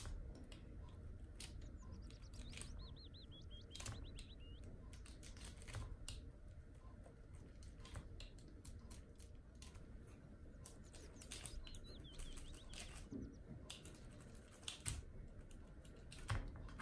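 Scattered light clicks and taps of a small blade tool scoring dough rolls on a metal baking tray, with a small bird chirping twice.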